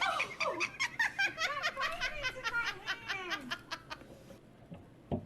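A person laughing hard in quick, high-pitched bursts that slide down in pitch and die away about four seconds in; a single short click comes near the end.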